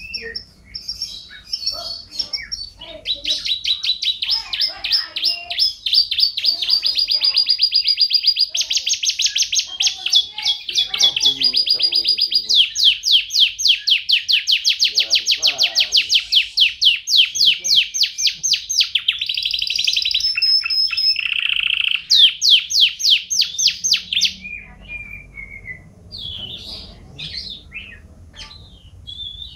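Domestic canary singing a long, loud song of fast trills, each run of rapid repeated notes held a second or two before switching to another pitch, with a lower, buzzier trill a little past two-thirds of the way through. About 24 seconds in the trilling stops and only softer, scattered chirps remain.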